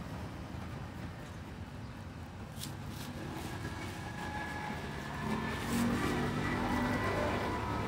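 Road traffic passing: a steady low rumble, with a vehicle engine growing louder about five seconds in. A couple of short sharp clicks sound over it.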